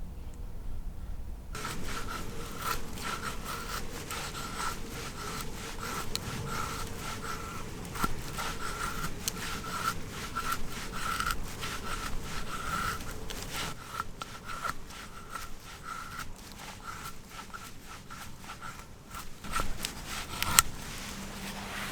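Hand sawing through wood in repeated back-and-forth strokes, with small cracks and clicks, starting about a second and a half in.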